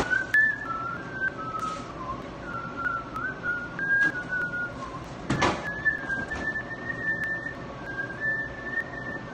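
A man whistling a tune: one clear whistled line stepping from note to note, with short pauses between phrases. A single sharp knock sounds about halfway through.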